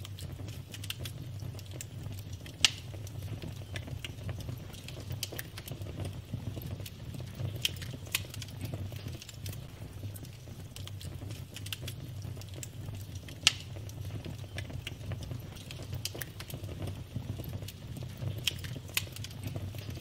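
Burning logs in a wood fire crackling, with frequent small snaps over a low steady rumble. Two sharp, much louder pops come a few seconds in and about two-thirds of the way through.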